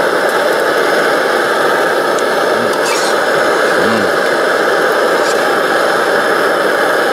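Liquid-fuel camp stove, an MSR Dragonfly, burning at full flame under a frying pan: a loud, steady rushing noise that does not change.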